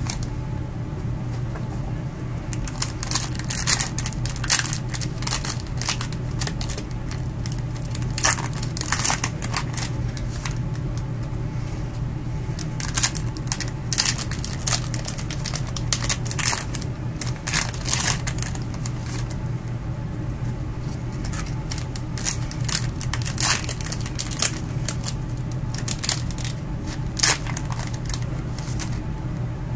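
Gloved hands opening trading-card packs and handling the cards: irregular crinkling and rustling of pack wrappers, with short clicks and slides of cards, over a steady low hum.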